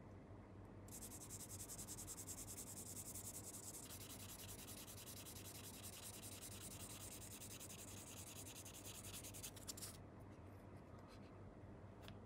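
Sanding sponge rubbed in quick back-and-forth strokes over a black plastic scale-model part, a fine scratchy rasp that starts about a second in and stops about ten seconds in. It is smoothing the part before painting.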